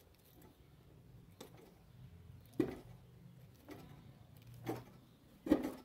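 Lineman's pliers gripping and twisting copper wire ends together, giving five short metallic clicks about a second apart, the sharpest about halfway through and near the end.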